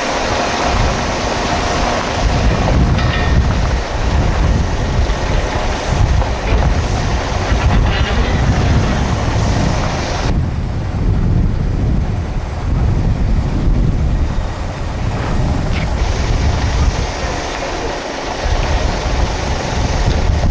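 A heavy vehicle running, with a deep, uneven rumble.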